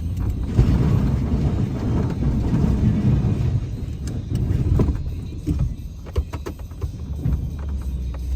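Vehicle engine running with a steady low hum, with a rough scraping rumble for the first few seconds and scattered clicks and knocks.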